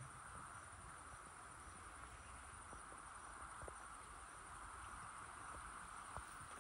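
Faint, steady high-pitched trilling of insects, with a few soft scattered ticks.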